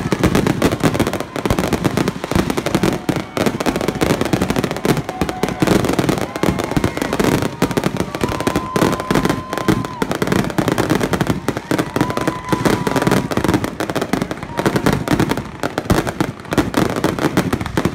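Fireworks display in a rapid barrage: many shells bursting and crackling in quick succession, with no let-up.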